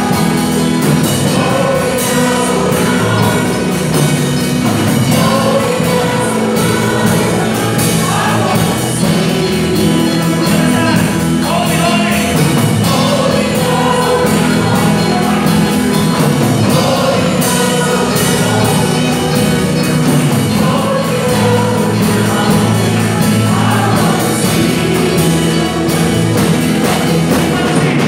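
A live praise band playing a worship song: a female lead and women's backing voices singing together over keyboard and guitar, continuous throughout.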